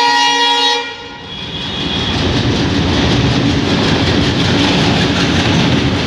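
WDM-3A diesel locomotive's air horn sounding a chord and cutting off sharply about a second in. Then the loud rumble of its 16-cylinder ALCo 251 engine and the clatter of wheels on rails build up as the locomotive and coaches pass close by on the steel bridge.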